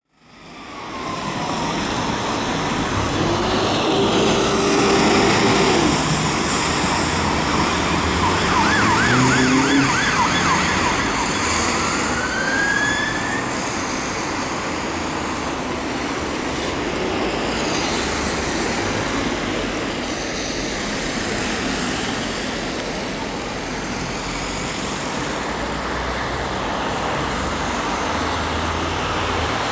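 Dennis Sabre fire engine's electronic siren sounding, sweeping up and down and switching about ten seconds in to a rapid warbling yelp, over steady road traffic noise. In the second half the siren is much less prominent and the traffic noise carries on.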